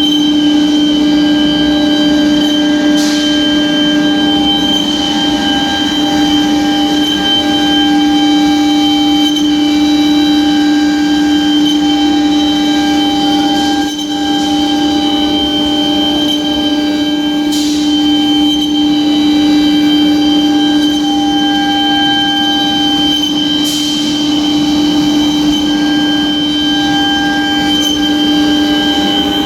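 Water-cooled spindle of a heavy-duty CNC wood router running with a steady whine at one constant pitch. A few short ticks come through about 3, 18 and 24 seconds in.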